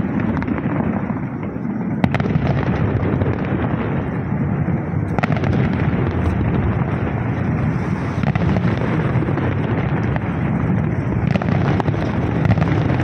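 Fireworks going off as a continuous rumble of bangs, with a few sharper cracks about two, five and eleven seconds in.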